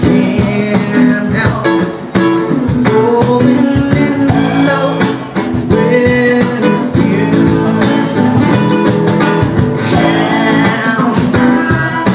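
Live band music: a singer with guitar accompaniment.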